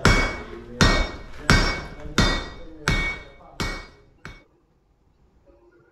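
Smith's hand hammer striking metal on an anvil in steady, evenly spaced blows, about three every two seconds, each blow ringing. A lighter last tap comes just after four seconds, then the hammering stops.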